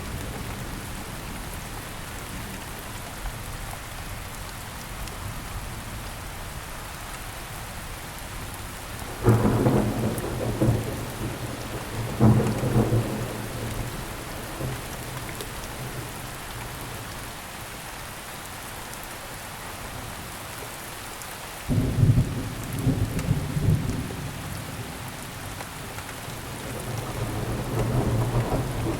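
Steady rainfall with thunder: sudden loud rumbling claps about nine seconds in, again about three seconds later, and once more around twenty-two seconds in, then a slower rolling rumble building near the end.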